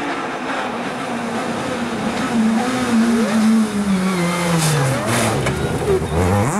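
Rally car engine, its pitch holding and then falling steadily as the car slows, before rising sharply near the end as it accelerates hard.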